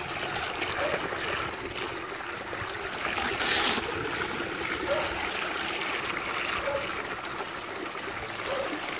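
Water rushing and splashing down a sluice box over its recovery mat: a steady wash that swells briefly about three and a half seconds in.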